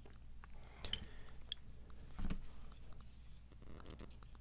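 A few small metallic clicks and taps as a padlock and lock-picking tools are handled, with one sharper click about a second in.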